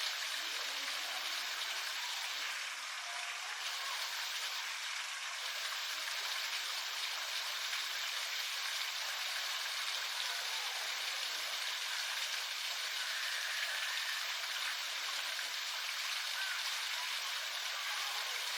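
Steady, even hiss of water, running or falling without a break.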